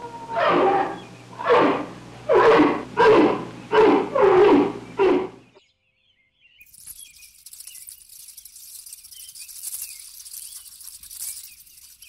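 White-faced capuchin monkey calling: about seven short, loud calls in quick succession over the first five seconds. After a second's pause, a faint high hiss with small chirps.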